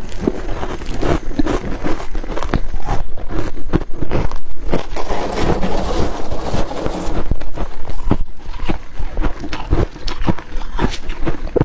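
Close-up crunching of ice: a mouthful of frozen ice being chewed, then gloved hands digging into and scraping packed frost in a chest freezer. The crunches and crackles come thick and fast throughout, with a longer scraping stretch near the middle.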